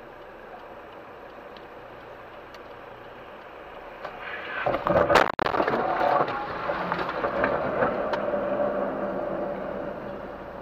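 Road noise from a car on a wet street: a steady hiss that grows louder from about four seconds in. A sharp crack about five seconds in is followed by a moment's drop-out, then the louder tyre and engine noise carries on steadily.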